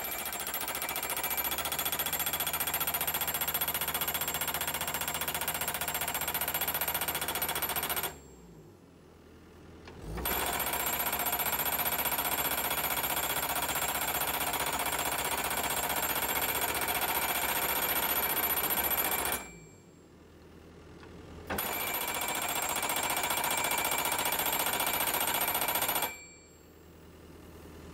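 Skid-steer-mounted hydraulic post driver hammering a wooden fence post into the ground with rapid, continuous blows. The hammering comes in three long runs, of about eight, nine and five seconds, each stopping abruptly with short pauses between.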